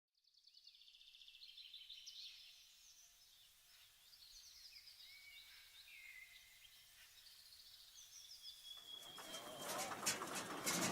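Small birds chirping and trilling, faint and high-pitched. About nine seconds in, a louder noise swells up over them and keeps rising.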